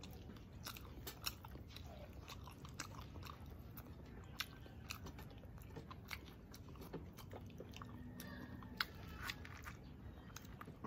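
Close-miked chewing and biting: a continual run of small clicks and crunches from someone eating.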